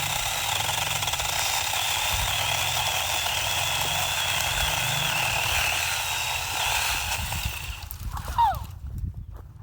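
Brookstone mini handheld power saw running steadily for about eight seconds with a wavering high whine, then shutting off near the end.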